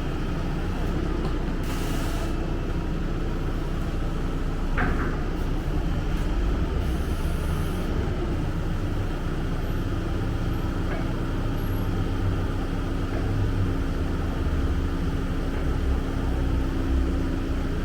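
A large engine running steadily, a low drone with a steady hum, with a brief hiss about two seconds in.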